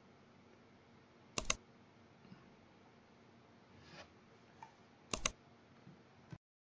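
Computer mouse clicks: two sharp clicks, each a quick double tick, about a second and a half in and again about five seconds in, with a few fainter ticks between them over faint hiss.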